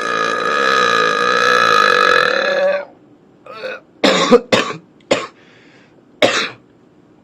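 A long, drawn-out burp held at a steady pitch for about three seconds, ending abruptly. Five short, sharp bursts of sound follow over the next few seconds.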